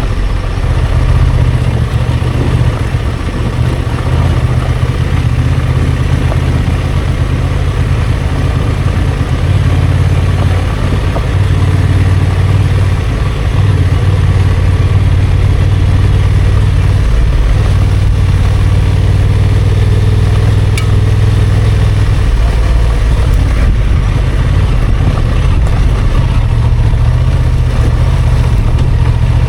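Honda XL750 Transalp's 755 cc parallel-twin engine running while the motorcycle is ridden off-road. It gives a deep, steady note with small shifts in pitch as the throttle changes.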